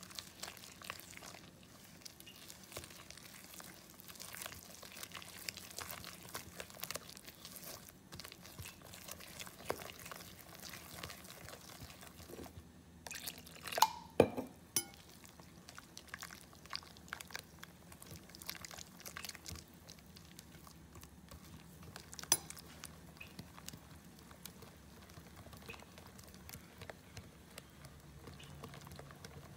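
Wire whisk beating thick besan-and-flour batter in a glass bowl as water is worked in: a steady run of light, wet clicks and scrapes. There are a couple of sharper knocks about fourteen seconds in and another around twenty-two seconds.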